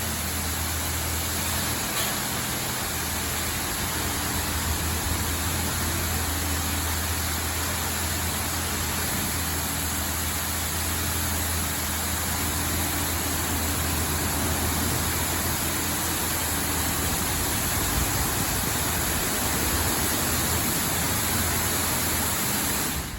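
LaserWash 4000 touchless automatic car wash running: a steady rushing noise of its spray or blower equipment over a constant low machine hum.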